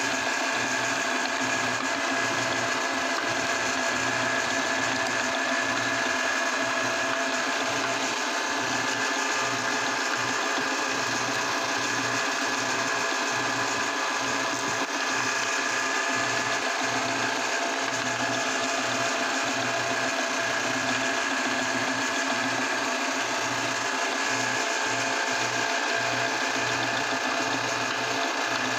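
A meat grinder running with a steady mechanical whir and several steady tones over a continuous hiss, unbroken and even throughout.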